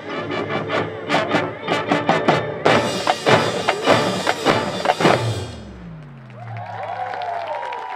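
High school marching band playing a loud ensemble passage with sharp drum strikes and full-band hits. The music stops about five seconds in, leaving a low tone that slides down and fades, and cheering starts near the end.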